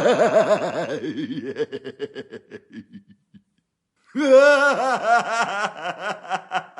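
Two cartoon laughter sound effects: a rapid, pulsing chuckle that trails off over about three seconds, then after a short silence a second, higher-pitched cackling laugh about four seconds in.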